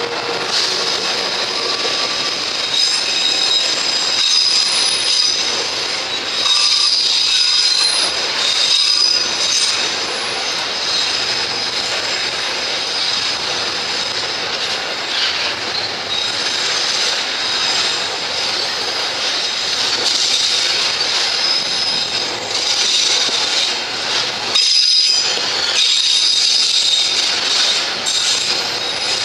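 Tarpaulin-covered freight wagons rolling past close by, a steady rumble and clatter of wheels on rail with high-pitched wheel squeals that come and go.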